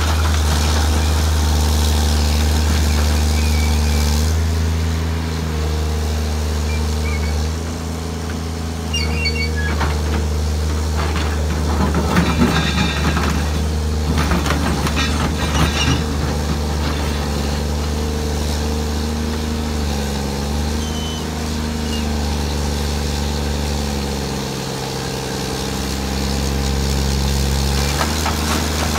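Samsung SE350LC-2 excavator's replacement diesel engine running without an engine cover. Its note dips and recovers several times as the hydraulics take load. For several seconds about halfway through, rock and soil clatter and scrape as the bucket digs into the pile.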